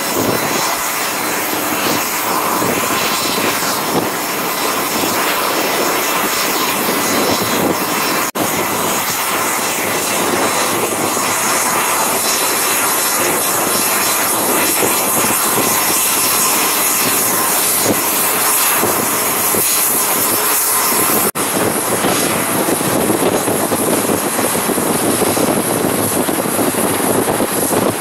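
Jet airliner engines running with a steady, loud noise: a Boeing 747 taxiing, then, after an abrupt break about eight seconds in, an Embraer regional jet climbing away after takeoff. A second abrupt break comes about twenty-one seconds in, and the steady noise goes on.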